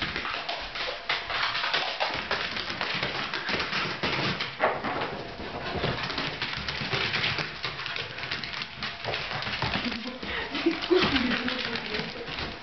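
Two Scottish terriers, an adult and a puppy, scrabbling and skittering on a hard vinyl floor as they chase each other in play: a dense, busy patter of claw clicks and scuffs. A few short dog vocalisations come a little before the end.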